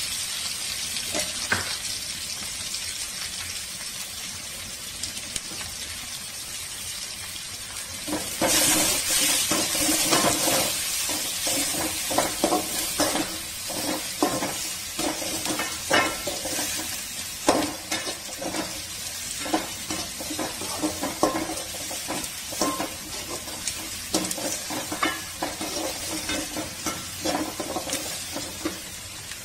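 Sliced onions sizzling in hot oil in a metal kadai. From about eight seconds in, the sizzle gets louder and a metal spatula scrapes and clicks against the pan as the onions are stirred.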